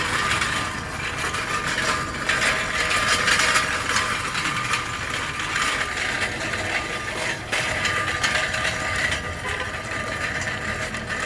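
Hand cart being pushed, its wheels rattling and clattering steadily over the floor.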